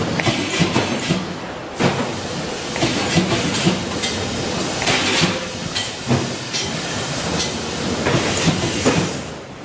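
Steady clattering machinery noise with frequent irregular metallic clanks and knocks from steel wire baskets being handled and worked at a pedestal spot-welding machine.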